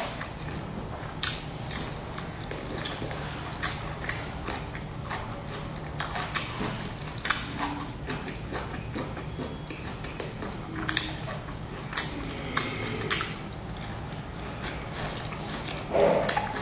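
Close-up eating sounds of a fried pastry: scattered crisp crunches and clicks of biting and chewing over a steady low hum, with a louder bite near the end.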